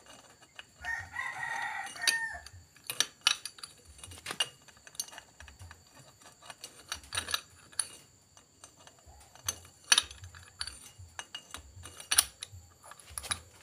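Sharp metallic clicks and clinks from a Suzuki Satria 120R's clutch plates and clutch basket being worked into place by hand, irregular and spread throughout. About a second in, a rooster crows once.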